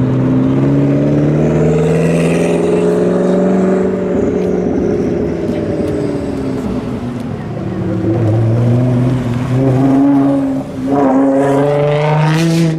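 McLaren 3.8-litre twin-turbo V8 running at low revs as the car rolls past and pulls away, its note steady at first, then sinking in pitch as it moves off. Near the end, another car's engine revs up with a rising note.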